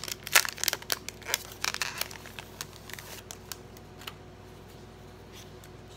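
Clear plastic packaging sleeve crinkling as a pad of printed papers is pulled out of it, busiest over the first two seconds and thinning to a few scattered crackles by about four seconds in.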